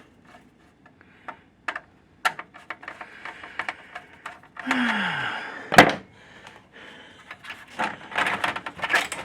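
Parts being pried and pulled off a computer circuit board by hand: scattered clicks and knocks, a stretch of scraping, one sharp snap a little before halfway, then a quick run of clicking and rattling near the end.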